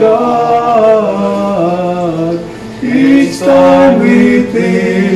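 Slow vocal music: a man singing long held notes that step up and down in pitch, with a brief break about three seconds in.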